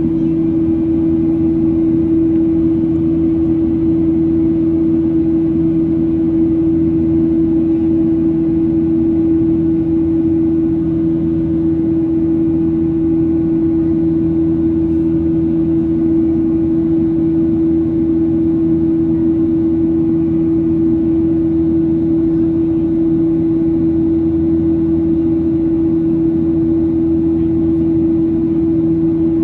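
Cabin noise of a Boeing 737-800 in its climb after takeoff: the CFM56-7B turbofans' steady drone and the rush of air, with one strong steady hum over a low rumble.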